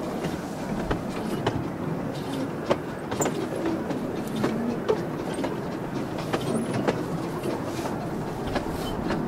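Miniature railway train running, heard from an open carriage: a steady rumble of the wheels on the track, broken by irregular sharp clicks and knocks.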